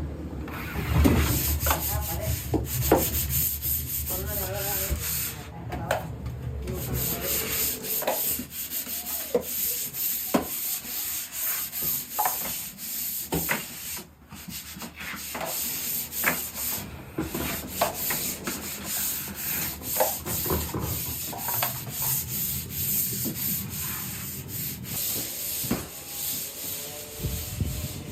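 Irregular rubbing and scraping strokes of a hand tool working a wall surface, over a steady high hiss.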